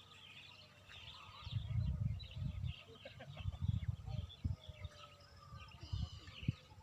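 Small birds chirping and twittering in the background, with irregular low thumps and rumbles in between that are the loudest sounds.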